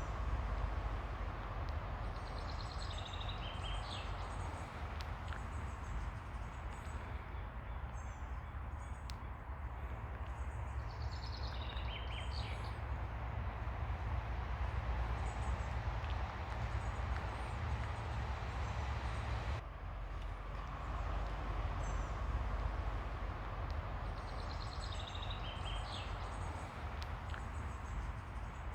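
Ocean surf washing steadily onto a beach, with birds chirping now and then in short, falling series of high notes.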